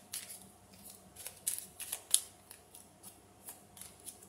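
Tarot cards being handled and shuffled by hand: a run of quick, irregular papery snaps and slides as cards are thumbed through the deck, busiest about halfway through.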